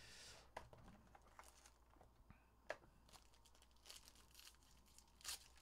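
Faint crinkling and tearing of trading-card packaging as a Panini Obsidian hobby box is opened and its dark foil-wrapped pack is pulled out, with a few small, scattered clicks and taps.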